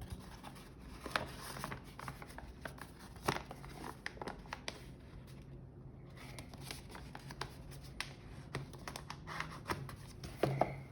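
Faint rustling and soft scratching of origami paper being handled and creased by hand, with scattered small clicks, over a low steady hum.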